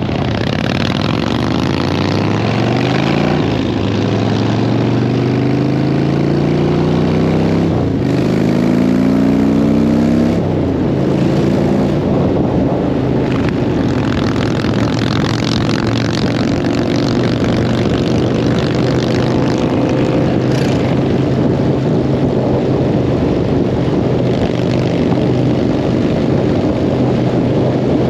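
Motorcycle engine accelerating hard through the gears: the pitch climbs and drops back at each upshift, three times in the first ten seconds or so. After that it holds a steady cruise under a constant rushing noise.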